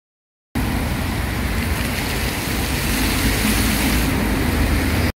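Fountain jet spraying and splashing into its basin: a steady hiss over a low rumble, with road traffic mixed in. It starts abruptly about half a second in and cuts off just before the end.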